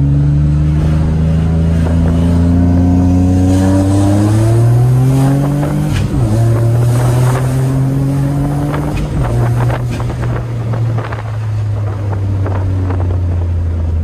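Turbocharged VQ35 V6 of a single-turbo Infiniti G35, heard from inside the cabin under acceleration. The revs climb for about five seconds, drop at a gear change about six seconds in and climb again, then run steadier and ease off, with a scatter of sharp clicks and pops in the last few seconds. The engine is running with all its boost leaks fixed and one small exhaust leak still open at an unclamped V-band joint.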